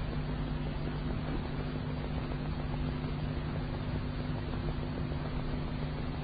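Steady hiss and low electrical hum of an old, narrow-band recording, with no voice.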